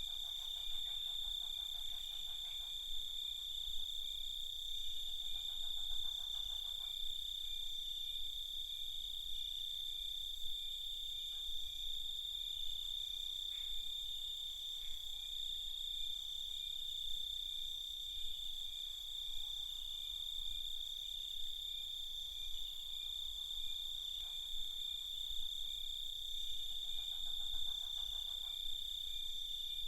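Night chorus of crickets trilling steadily, a continuous high-pitched ringing. A lower, rapidly pulsed call comes in briefly a few times.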